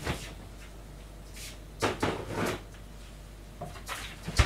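Kitchen handling noises: a few short knocks and brushing sounds of things being moved about on the counter, with the sharpest knock near the end.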